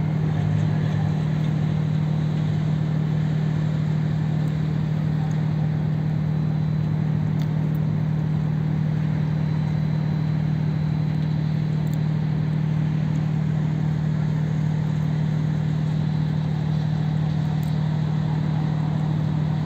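Steady low engine hum, running at an even level throughout with no change in pitch.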